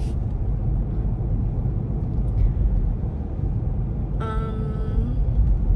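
Steady low road and engine rumble inside a moving car's cabin. A short held pitched tone sounds about four seconds in.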